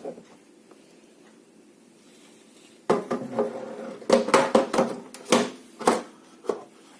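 Hard plastic parts of an IKEA VÄXER hydroponic growing unit knocking and clicking together as trays are set into it: a cluster of sharp knocks starting about three seconds in and lasting some three and a half seconds.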